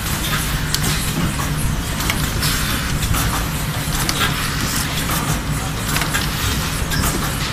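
Paper tube labeling and curling machine running: a steady low hum and hiss, with light clicks and taps from its mechanism as the tubes are turned and handled.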